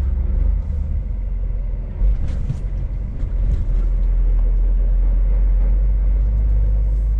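Scania S500 truck's diesel engine running at low speed, a steady low drone heard from inside the cab. About two seconds in comes a single loud thump as the truck rolls over a speed bump. The engine note shifts about three and a half seconds in and then holds steady.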